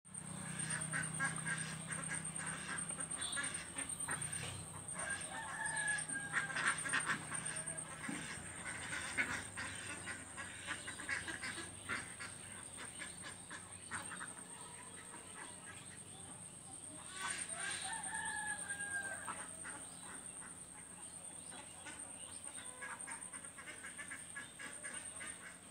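Rooster crowing twice, once about six seconds in and again about seventeen seconds in, amid scattered short bird calls, with a steady high-pitched whine throughout.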